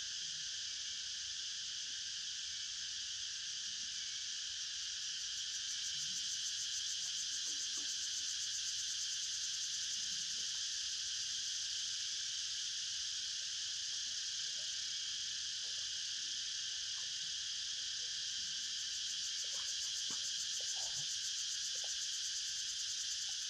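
Steady, dense high-pitched insect chorus with a fine rapid pulse, swelling slightly about six seconds in.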